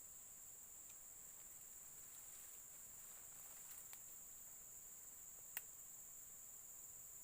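Steady high-pitched insect drone, crickets or cicadas, faint throughout. A few small clicks sound, the sharpest about five and a half seconds in.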